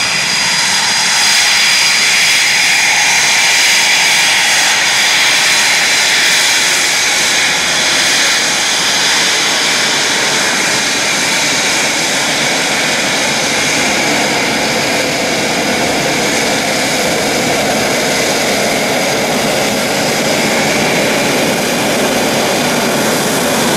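Eurofighter Typhoon's twin EJ200 turbofans running at taxi power as the jet rolls past close by: a steady high whine over the rush of jet noise.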